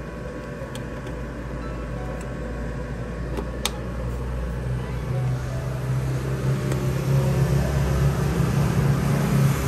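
Deep, bass-only rumble from a sound system's subwoofer playing a signal, growing steadily louder; a short click about three and a half seconds in.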